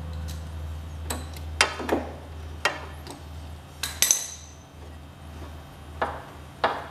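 Hand tools clinking against metal: several sharp, irregular metallic clicks and knocks, one about four seconds in ringing briefly, as a bolt on a garden tractor is tightened down. A steady low hum runs underneath.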